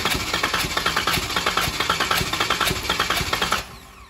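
Starter cranking a Jeep Wrangler's 3.6 Pentastar V6 without it firing, for a compression test, with an even pulsing rhythm from the cylinders' compression strokes. It stops about three and a half seconds in.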